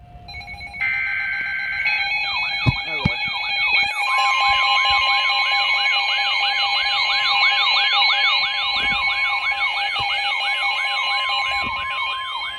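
Emergency Alert System activation for a severe thunderstorm warning: a brief screech of digital header data, then from about two seconds in several alert tones sound together, a siren-like warble rising and falling about three times a second over steady tones. About four seconds in, another long steady alert tone joins them, and all the tones stop near the end.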